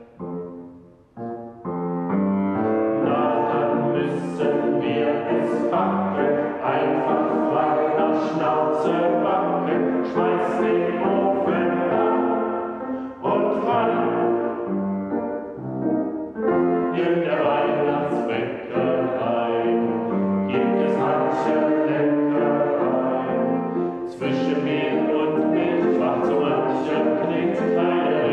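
A small group of voices singing a German Christmas song, accompanied by a grand piano.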